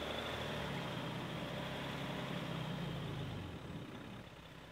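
Jeep Wrangler engine running steadily under throttle in two-wheel drive, spinning the rear wheel into the sand and mud until the vehicle is stuck; the engine eases off about three and a half seconds in.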